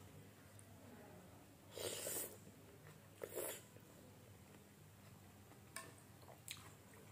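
A person slurping instant noodle soup: two short slurps about two and three seconds in, then a few faint clicks.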